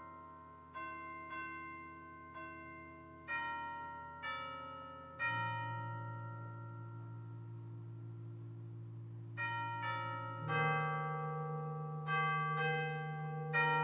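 Chimes playing a slow piece: struck bell-like notes, often two or three together, each ringing on and dying away, over long-held lower notes that change about five and ten seconds in.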